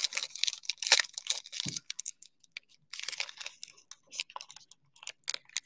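A trading card pack's wrapper being crinkled and torn open by hand, a run of irregular sharp crackles and snaps, with one soft knock about one and a half seconds in.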